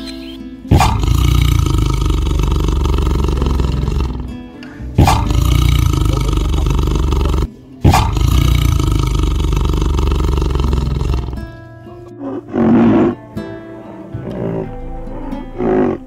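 Tiger roaring three times, each roar starting abruptly and lasting about three to four seconds, over background music. After the third roar only the quieter music goes on, with one short louder sound a second or so later.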